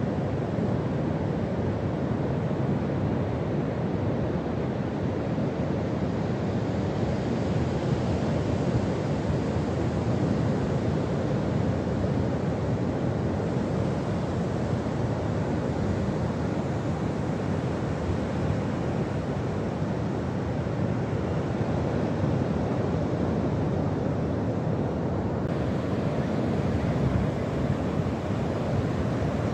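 Ocean surf breaking and washing up a sandy beach, a steady rush, with wind on the microphone.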